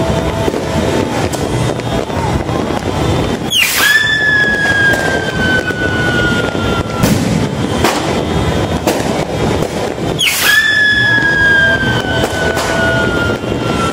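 Fireworks going off: constant crackling with scattered bangs, and two long whistles, about four and ten seconds in, that sweep sharply up and then fall slowly.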